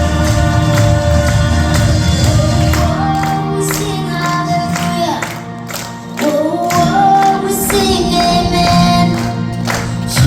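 Contemporary Christian worship song playing: sung vocal lines held over a full band, which thins out about halfway through and then builds back up.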